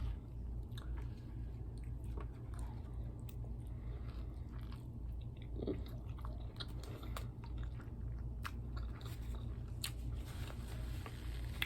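Close-miked chewing and biting on tacos: wet mouth sounds with scattered crisp crunches and clicks, over a steady low hum.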